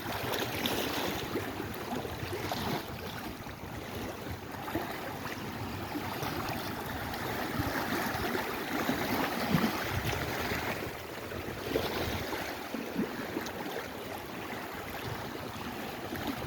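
Lake Erie waves washing in, a steady rush of water that swells and eases every few seconds.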